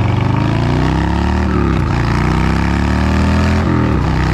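Harley-Davidson Low Rider S V-twin accelerating through the gears. Its pitch climbs, drops at an upshift about a second and a half in, climbs again and drops at another shift about three and a half seconds in, with steady wind noise underneath.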